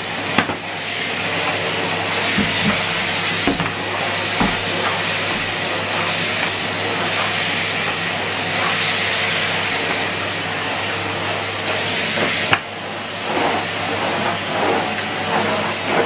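Numatic Hetty HET160 bagged cylinder vacuum cleaner running steadily as its floor tool is pushed over carpet: a continuous hissing rush of air with a motor whine, broken by a few light knocks.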